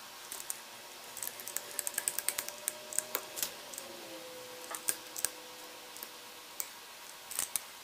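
Hand laminating roller worked over resin-wet fiberglass mat, making irregular light clicks and ticks, several a second. A faint steady hum sits underneath.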